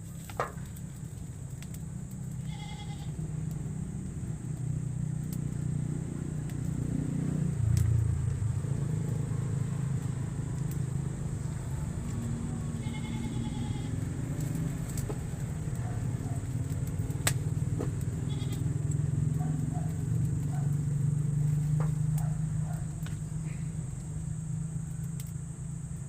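Farm animals bleating briefly a couple of times, about three seconds in and again near the middle, over a steady low rumble.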